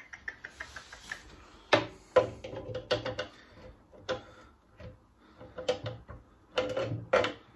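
Hand tool working a fastener loose at the bottom of a Suffolk Super Colt mower's engine cowling: a quick run of small ticks in the first second, then scattered metal clicks, clinks and knocks.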